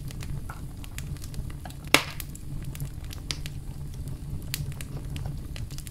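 Knife slicing a lime on a cutting board: scattered small clicks and squishy cuts, with one sharper knock of the blade on the board about two seconds in.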